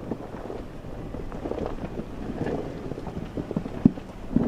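Jeep Wrangler crawling slowly over loose rocky ground: tyres crunching and cracking on gravel and stones over a low engine rumble, with wind on the microphone. A few sharper cracks stand out near the end.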